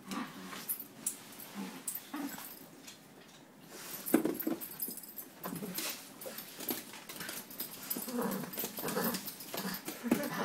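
Poodle growling in short bursts while playing with a toy, pausing briefly about three seconds in, with rustling and handling noise against the cushion.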